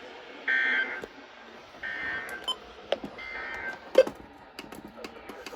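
Emergency Alert System end-of-message data bursts: three short, buzzy two-tone digital chirps less than a second apart, marking the end of the alert. Several sharp clicks follow near the end.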